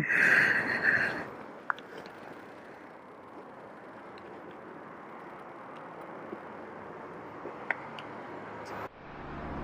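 A motorcycle tank bag being opened and handled: a loud rasp about a second long at the start, then a few light clicks over steady street noise.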